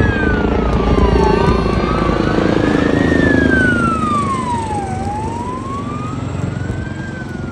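A siren wailing, its pitch rising and falling slowly about every four seconds, over the steady rotor chop of a Coast Guard rescue helicopter flying low overhead.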